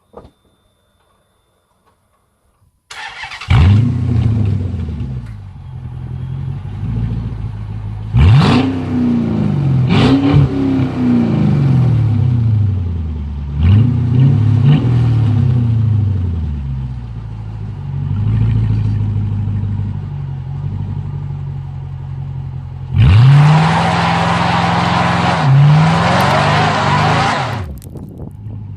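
Chrysler 300C engine and exhaust starting up about three seconds in, then idling between a series of short blips of the throttle. Near the end it is held at high revs for about four seconds before dropping back to idle.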